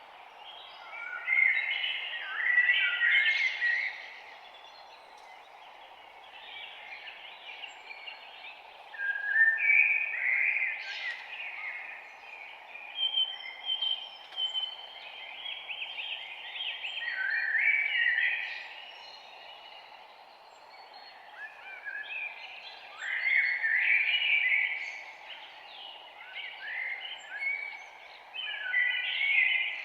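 Songbirds singing in bouts of chirping, warbling phrases a couple of seconds long, every few seconds. Under them runs a steady hiss of background noise.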